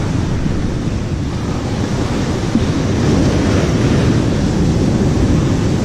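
Loud, steady rush of wind buffeting the microphone, with sea surf washing on the rocks underneath.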